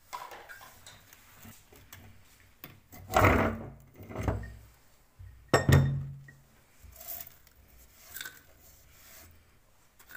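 Metal parts of a hand-cranked meat grinder clanking as it is taken apart: two loud clunks with a short low ring, about three seconds in and again just before six seconds, amid lighter knocks and handling noise.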